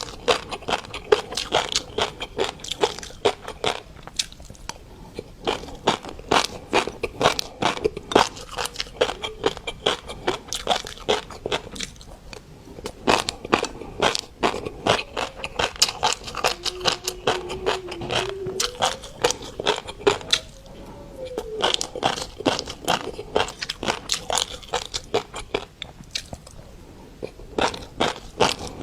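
Close-miked chewing of mixed-colour fish roe, the eggs bursting between the teeth in dense, rapid crackling pops, with a few short pauses.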